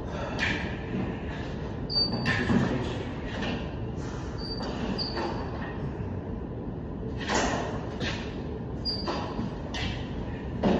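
Intermittent scrapes and knocks of plastering work, from trowels and tools on the hawk and bucket and from a rolling metal scaffold, echoing in a large hard-walled room over steady background noise. A few very short high squeaks are mixed in.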